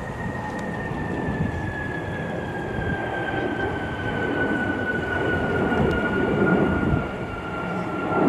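Boeing 757 jet engines at takeoff climb power overhead: a deep rumble with a high whine that slowly falls in pitch, growing louder toward the end.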